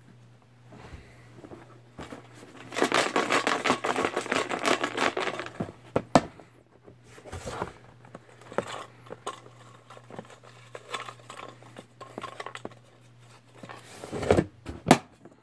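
Paper being handled at close range: rustling, crinkling and small clicks and scrapes, densest from about three to five and a half seconds in, then scattered clicks and a short rustle near the end. A steady low hum runs underneath.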